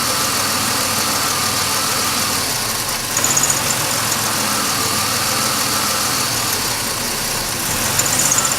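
2005 Chevy Impala's 3.4-litre V6 idling while the camshaft position sensor wiring harness is wiggled, the idle changing as the harness moves: the sign of an intermittent fault in that harness, which causes the no-start and start-and-stall. Two brief rattles come about three seconds in and near the end.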